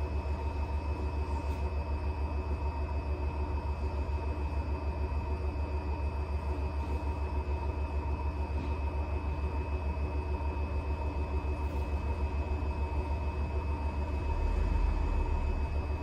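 Electrolux W75MP commercial washer-extractor spinning at high speed in its final extraction: a steady low rumble that pulses quickly and evenly, with a steady motor whine above it. The low rumble swells briefly near the end.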